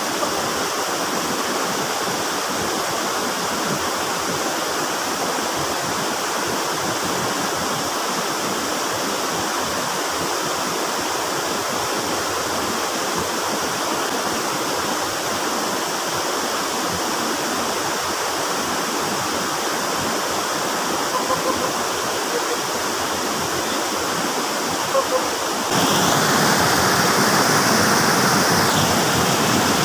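Shallow rocky stream rushing over stones in small cascades, a steady wash of water. About 26 seconds in it switches abruptly to a louder, closer rush of white water.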